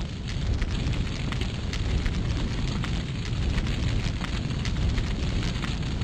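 Fire sound effect: a steady low rumble of flames with many small crackles and pops throughout.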